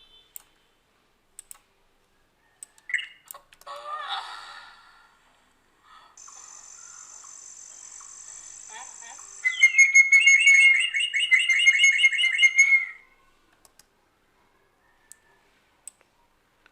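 Recorded birdsong sound effect: a short flurry of chirps, then a steady high-pitched hiss-like tone, then a loud, fast whistled trill of rapidly repeated notes lasting about three seconds. Faint mouse clicks come before and after.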